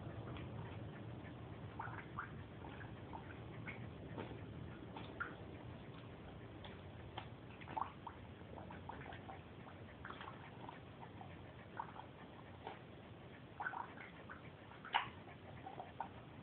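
Beagle-mix puppy blowing bubbles into her water bowl: faint, irregular little bubbling pops and splashes, the loudest near the end, over a low hum.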